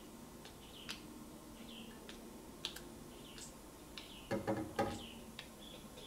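Short, faint squirts from a WD-40 aerosol can's red straw nozzle as the valve is tapped again and again, laying down drops of oil, about one squirt every second or less. A quick cluster of clicks and rattling comes about four seconds in.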